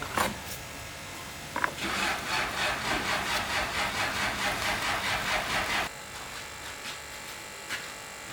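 A hand tool scraping a surface back and forth in quick, even strokes, several a second, for about four seconds, then stopping abruptly. A few single sharp knocks come before and after.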